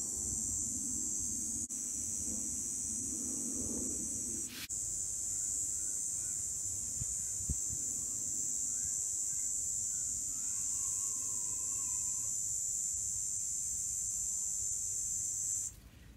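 Steady high-pitched hiss with a click about four and a half seconds in; the hiss cuts off shortly before the end.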